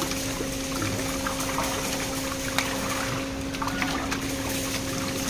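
Water splashing and pouring as catfish are sorted through plastic mesh sizing baskets in water-filled tubs, over a steady machine hum.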